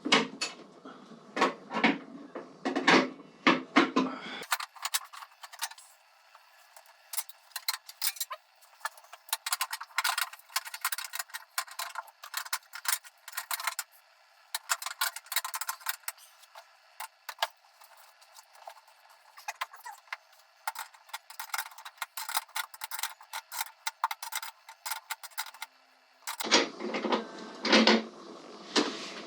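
Irregular metallic clicks and clinks of hand tools and bolt hardware as a bolt is worked on a motorcycle luggage carrier. For most of the stretch the sound is thin, with no low end.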